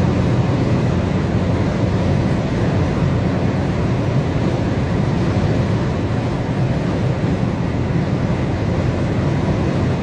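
Steady road noise inside a moving car's cabin: engine and tyre rumble at highway speed, even and unchanging.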